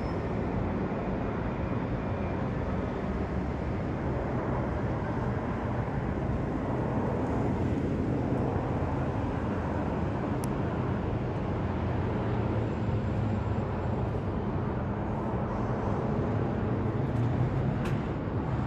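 Jet engine rumble of a British Airways Boeing 787-9 with Rolls-Royce Trent 1000 engines, flying low overhead on approach. The rumble holds steady as the airliner comes in head-on, passes overhead and moves away.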